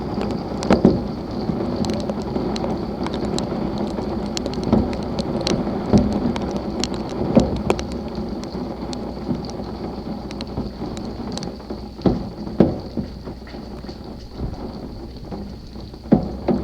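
Heavy thunderstorm rain pelting a hard surface: a steady wash of rain with frequent irregular sharp hits from large drops.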